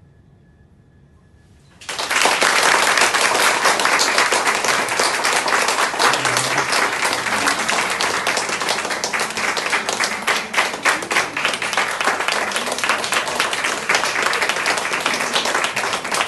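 A last soft flute note fades out, then about two seconds in an audience breaks into applause, many hands clapping steadily.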